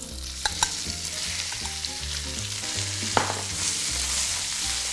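Minced duck meat sizzling in hot duck fat in a wok, the hiss swelling as the meat goes in and then holding steady. A few sharp clinks against the wok come through the sizzle.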